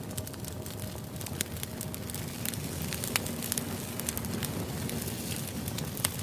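Firewood burning, with frequent irregular crackles and pops over a steady low rush of flame.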